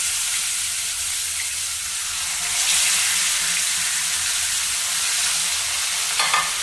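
Marinated pearl spot fish sizzling steadily as they shallow-fry in hot sunflower oil, with more fish laid into the pan. The sizzle swells briefly about two and a half seconds in.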